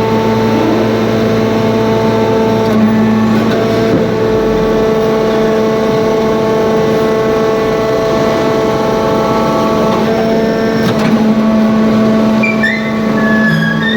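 Hydraulic scrap baler running: a loud, steady hum-whine from its motor and hydraulic pump, with a brief higher squeal near the end.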